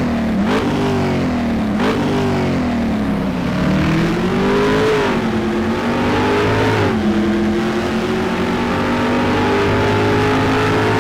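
Car engine revving in three quick blips, then accelerating hard: the engine note climbs, drops sharply about five and again about seven seconds in as the transmission upshifts, then climbs slowly again.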